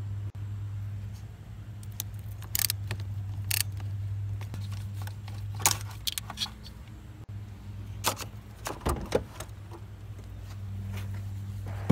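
Scattered metallic clicks and clunks from car battery cable clamps and the battery being handled and lifted out of its tray, over a steady low hum.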